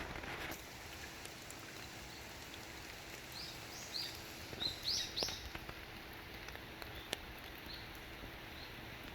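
Water drops pattering and trickling steadily, with scattered single drips. About three seconds in, a small bird gives a quick run of about six short, high chirps lasting two or three seconds; these are the loudest sounds.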